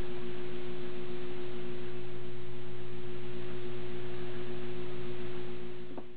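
Steady electrical hum with a constant mid-pitched tone over a low drone and an even hiss. It fades out near the end.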